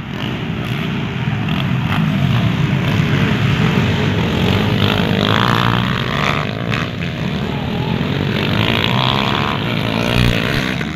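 Several dirt bike engines running at high revs as trail bikes race past, loud throughout.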